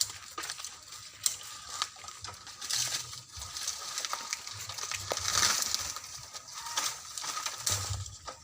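Hand saw cutting into a bamboo stalk: uneven scraping with crackles and clicks, growing louder about five seconds in.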